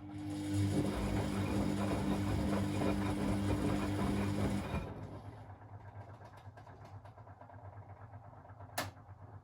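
Beko WA 1050 washing machine mid-cycle: a burst of about five seconds of rushing noise with a steady low hum, starting and stopping abruptly. A single sharp click comes near the end.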